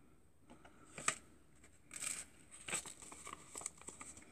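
Faint, short rustles and crinkles of a paper seed packet being handled, coming a few times.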